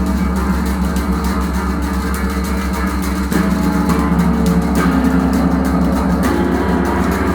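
Gong played for strange sounds: a loud, deep, steady drone with a dense wash of overtones above it, its pitch pattern shifting about six seconds in.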